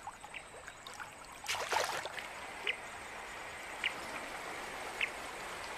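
A river flowing steadily, with a short, high chirp repeating about once a second from around halfway, and a brief burst of noise about one and a half seconds in.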